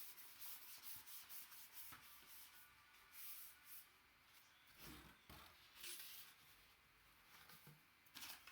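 Near silence with faint, scattered rustling and rubbing, as of packaging being handled between items.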